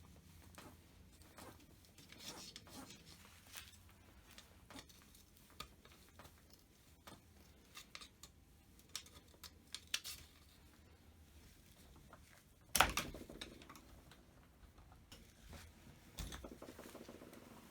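Scattered clicks and knocks of hand-tool work on a chainsaw being taken apart. A loud clunk with a short ring comes about two-thirds of the way in, and a smaller knock near the end.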